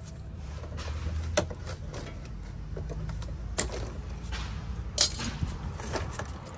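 Plastic packing straps on a boxed replacement radiator being cut and pulled off: three sharp snaps, the loudest about five seconds in.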